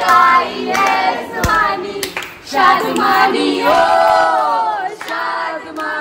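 A group of young women singing together in loud, drawn-out lines, with some hand clapping.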